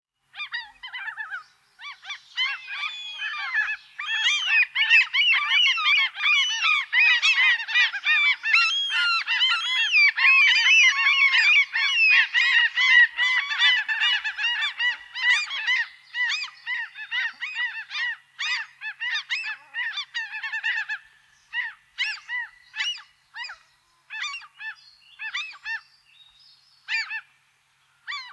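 A flock of birds honking: a dense chorus of many overlapping calls that thins out to scattered single honks over the last several seconds.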